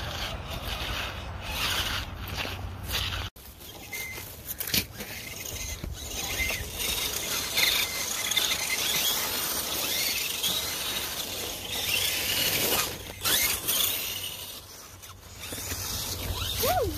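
Radio-controlled crawler trucks driving over ice and crusted snow: small electric motors and gears whining, with tyres scraping and crunching, rising and falling as they move.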